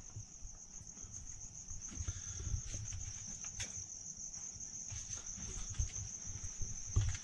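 Crickets chirping in a steady high-pitched trill, with faint low rustles and knocks of movement underneath.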